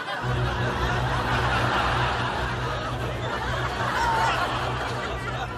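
Studio audience laughing in a long, continuous wave of laughter.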